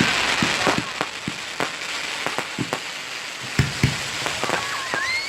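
Fireworks going off in many scattered bangs and crackles over a steady crackling hiss, with two louder bangs about three and a half seconds in.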